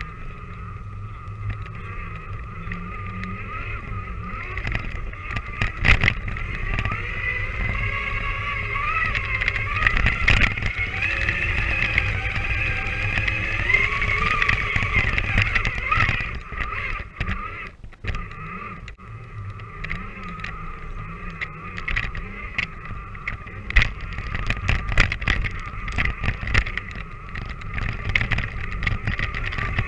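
Small RC truck's electric motor and gears whining as it drives through snow, the pitch rising and falling with the throttle, over a low rumble. Frequent short knocks and clatters run through it, and it eases off briefly about 17 seconds in.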